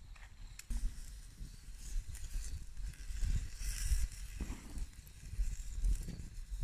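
Campfire hissing with scattered crackles under steak cooking on a small wire grill, over a steady low rumble on the microphone. The hiss swells briefly a little before the middle.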